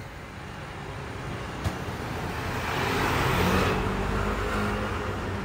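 Street traffic with a vehicle passing close by: its engine and tyre noise swells to a peak about three seconds in and then fades. A short click comes about one and a half seconds in.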